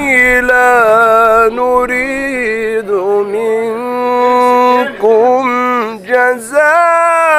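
A man reciting the Quran in the melodic, maqam-based style: long held notes with wavering ornaments, one voice at a microphone, broken by short breaths about three seconds in and again around six seconds.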